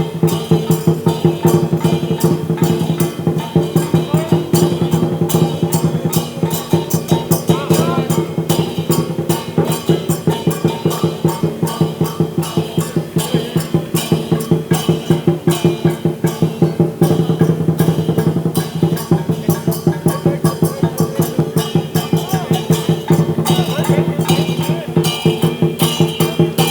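Chinese dragon dance percussion: drum and cymbals beating a rapid, even rhythm over a steady ringing tone.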